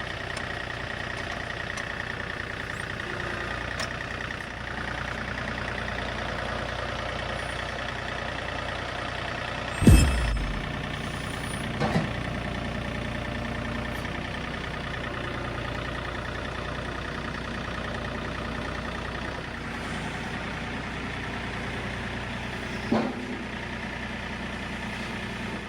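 John Deere 3025E compact tractor's three-cylinder diesel running steadily, with a loud clunk near the middle and two lighter knocks later from the front loader and grapple at work.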